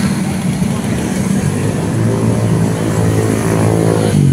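Motorcycle engine running steadily at low speed, a low even drone amid street traffic.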